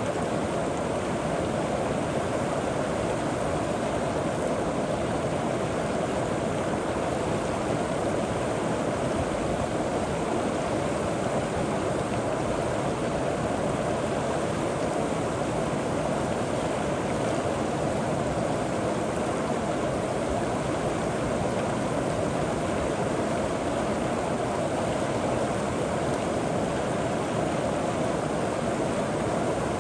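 River water flowing over rocks and pebbles, a steady even rushing.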